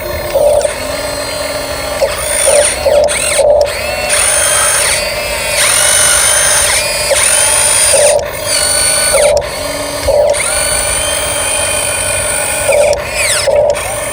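Electric motor and gearbox of an RC dump truck whining, the pitch rising and falling in repeated surges every second or two as the throttle is worked.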